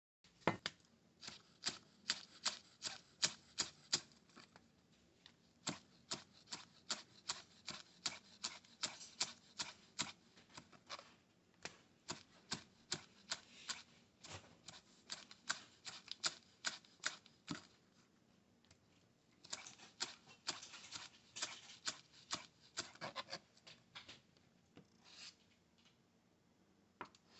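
Kitchen knife chopping scallions on a plastic cutting board: quick sharp taps, about three or four a second, with short pauses, thinning to a few taps near the end.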